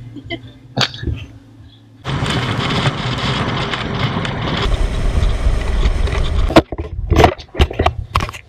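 Wind buffeting a camera microphone held out of the window of a moving SUV, with road noise, a loud even rumble that starts suddenly about two seconds in. About six and a half seconds in it breaks into a series of sharp knocks and bumps.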